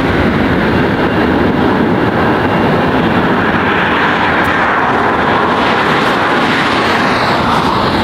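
Boeing 747-8's four GEnx turbofan engines at takeoff thrust as the airliner climbs away: a steady, even jet rumble.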